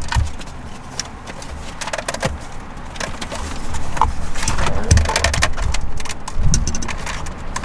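Plastic clicks, knocks and rattling as the Subaru Crosstrek's climate-control panel is pushed onto the front of an aftermarket head unit and the assembly is handled with its cables, busier and louder in the second half.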